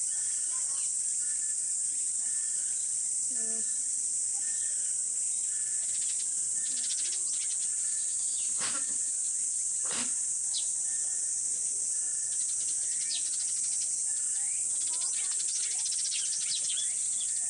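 Alpaca sneezing twice, two short sharp bursts about a second apart near the middle, over a steady high buzzing of insects.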